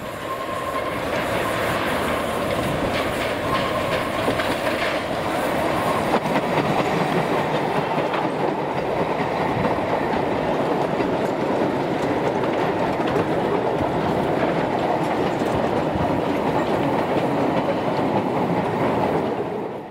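Narrow-gauge slate wagons of a Ffestiniog Railway slate train rolling steadily along the track, heard from on board: continuous wheel-on-rail running noise at an even level.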